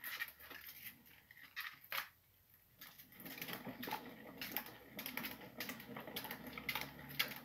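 Plastic exercise wheel spinning as a sugar glider runs in it, giving irregular clicking and rattling. It goes quiet briefly about two seconds in, then the rattling resumes more steadily.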